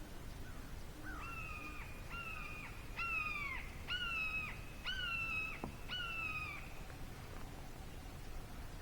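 A bird calling in the woods: a series of six clear, loud calls, each about half a second long and dropping slightly in pitch at the end, repeated about once a second.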